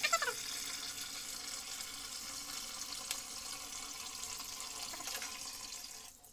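Kitchen tap running steadily into a bowl of water in a stainless steel sink, stopping near the end.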